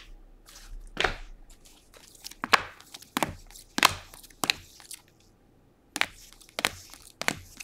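Baseball cards being flipped one at a time from the front of a hand-held stack to the back, each card making a short sharp slap or click, about one every half second to second, with a brief pause about five seconds in.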